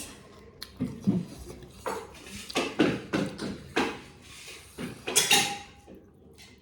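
Cutlery clinking and scraping against a plate while eating: a string of sharp clicks and short scrapes, with a brief ring near the end.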